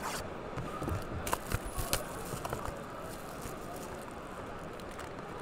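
Crackling and snapping of plastic wrapping and a cardboard card box being opened by hand and its foil-wrapped pack pulled out, with several sharp crackles in the first half.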